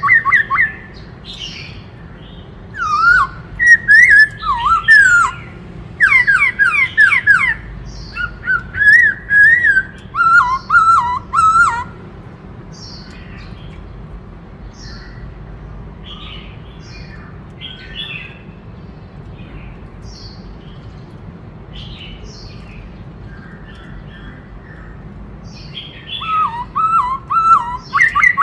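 Black-throated laughingthrush singing loud, rapid whistled phrases that sweep up and down. The song drops to quieter scattered notes about halfway through, then comes back loud near the end.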